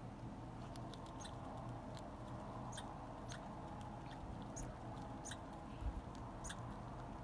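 Red squirrel chewing food held in its paws, heard close up as faint, irregular sharp clicks over a low steady hum. There is one dull bump just before six seconds in.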